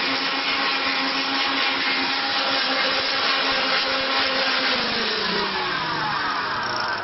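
Wood copy milling machine's high-speed spindle motor running steadily with a whine and hiss, then spinning down, its pitch sliding steadily lower over the last couple of seconds.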